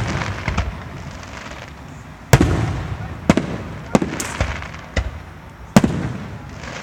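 Aerial fireworks shells bursting overhead: a string of sharp booms, roughly one a second, each trailing off in a rolling echo.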